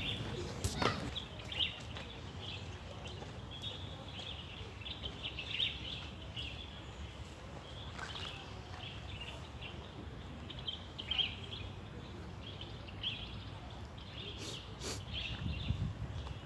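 Small birds chirping in many short, quick calls, over a steady low rumble of background noise, with a sharp click about a second in and a couple more near the end.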